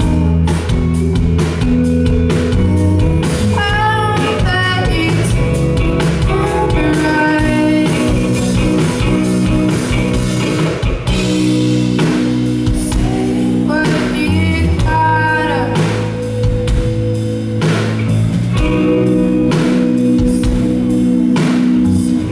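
An indie rock band playing live: electric guitar, bass and drum kit with a steady beat, and a woman singing over them for much of the passage.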